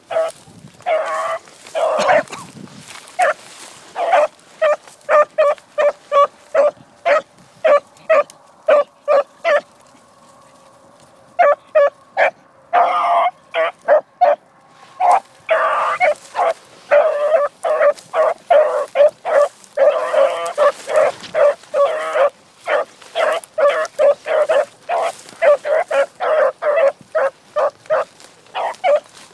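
A dog barking over and over, short high-pitched barks at about one to two a second, with a brief pause about a third of the way through.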